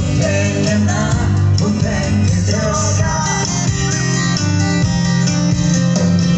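A live band playing a pop-rock song with acoustic guitar and bass under a wavering melody line. It is recorded from the crowd on a phone, so the sound is dull and lacks its top end.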